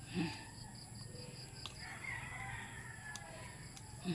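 A rooster crowing once, faintly, a single drawn-out crow starting about two seconds in.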